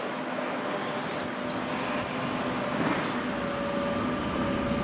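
X'Trapolis electric suburban train approaching slowly, a steady rush of running noise that grows a little louder, with a faint steady whine that firms up about three seconds in.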